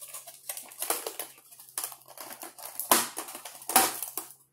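Clear plastic clamshell container being handled and opened. The stiff plastic crackles and clicks irregularly, with two louder snaps about three and four seconds in.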